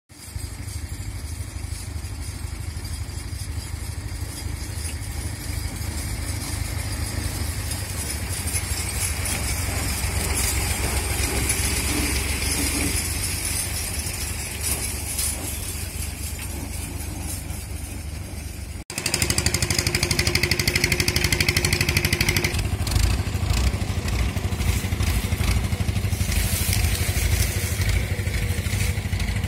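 Farm tractor's diesel engine running steadily as it hauls a trolley loaded with sugarcane. It is louder and closer from about nineteen seconds in.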